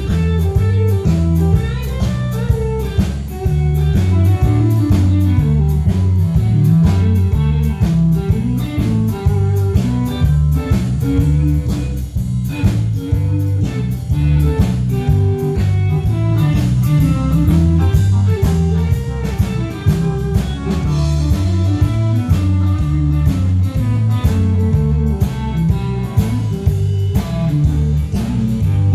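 Live band playing a country song: a guitar lead that slides between notes over bass guitar and a steady drum-kit beat.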